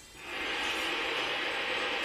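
Percussion in a concert: a dense, steady rattling texture that swells in over the first half second.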